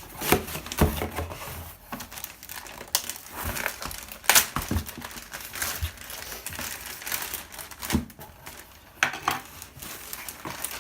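Packing paper crinkling and crumpling as it is handled and pulled out of a cardboard shipping box, in irregular rustles with a few louder crackles.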